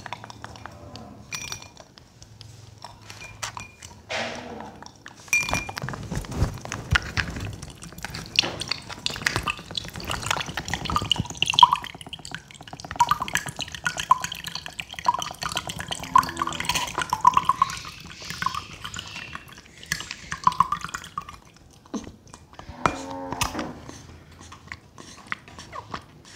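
Milk pouring from a carton into a glass, a run of gurgling blips and splashing through the middle, amid clicks and rustles close to the microphone. A baby macaque gives short low calls about four seconds in and again near the end.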